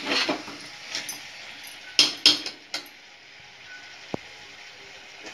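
A spatula stirring jackfruit pieces frying in masala in a metal pressure cooker, knocking against the pot with a few sharp clinks, loudest about two seconds in, over a low steady sizzle.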